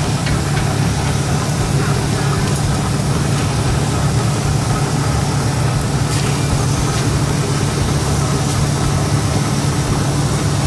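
A steady low mechanical drone, like a motor or engine running at a constant speed, with a few faint clicks.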